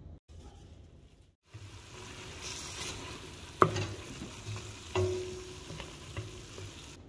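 Chopped onions sizzling as they fry in a stainless steel pot, starting about a second and a half in, stirred with a wooden spoon that knocks twice against the pot, the second knock leaving a short metallic ring.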